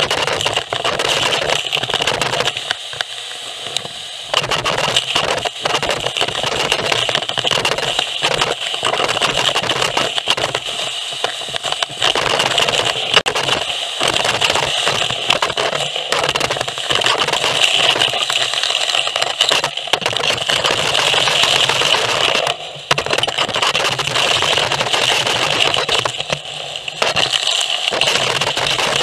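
Pole-mounted gutter vacuum nozzle sucking moss, leaves and grit out of a gutter. The suction gives a steady airflow whine, and debris rattles and crackles through the pipe. The sound dips briefly twice.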